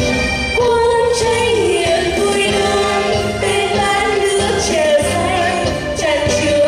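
A singer's voice carrying a slow melody with vibrato over band accompaniment with a steady beat.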